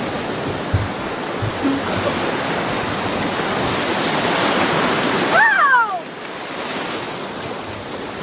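Ocean surf washing onto the beach: a steady rush of breaking waves that swells to its loudest about five seconds in, then drops off abruptly. A brief high cry with falling pitch is heard at the drop.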